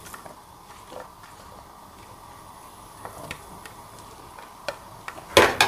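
Soft scattered taps and clicks of vegetables and a plate edge against a cooking pot as green beans and leaves are slid into simmering water, over a low steady background. A cluster of louder knocks comes near the end.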